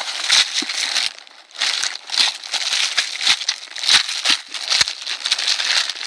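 Paper packing, magazine clippings, rustling and crinkling in repeated short bursts as a parcel is unpacked by hand, with a few light knocks among them.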